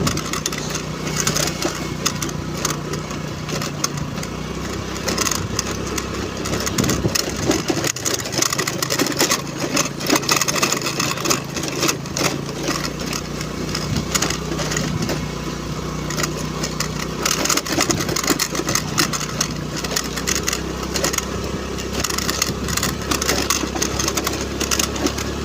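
Honda Navi's small single-cylinder engine running steadily as the scooter is ridden, under a constant rushing, crackling noise.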